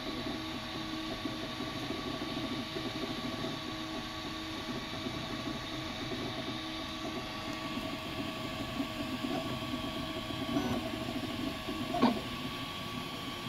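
Ultimaker 2+ 3D printer running while printing: its stepper motors whir with a few steady tones over a shifting rattle as the print head moves. A sharp click near the end is the loudest moment.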